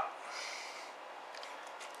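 Quiet room with a soft breath, then a few faint light clicks as a brass 12-gauge shotgun shell is handled and set down on the countertop.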